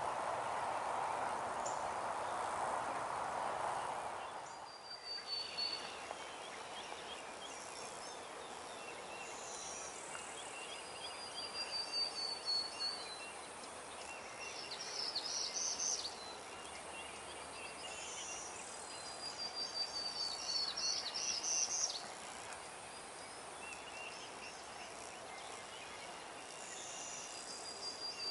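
Prairie warbler singing, repeating a short high song every several seconds, some phrases climbing in pitch, over a soft steady outdoor background. A louder steady rushing noise fills the first few seconds, then cuts out.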